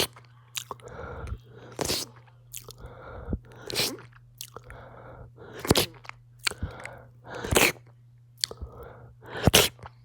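Close-up chewing of a giant gummy bear, with wet, sticky mouth clicks and smacks. Heavy breathing comes in swells every second or two, over a steady low hum.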